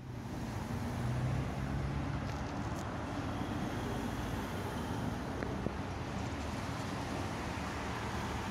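Road traffic noise: a steady hum of passing vehicles with a faint low engine drone.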